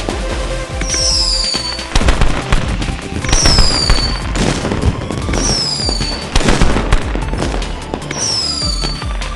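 Fireworks going off in quick succession, many sharp bangs and crackles, over music. A high falling tone repeats about every two seconds.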